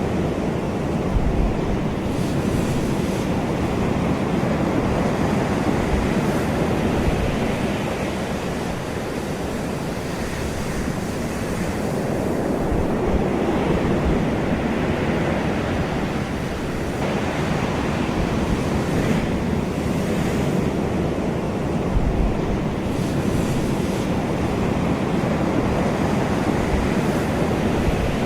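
Ocean waves washing on a shore, a continuous rushing surf that swells and eases slowly, with wind buffeting the microphone now and then.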